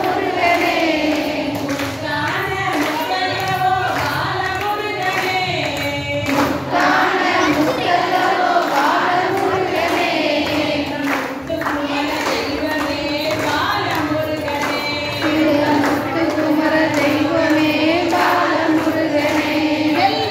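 A large group of women singing a Tamil devotional song together in unison, with hand claps now and then among the singing.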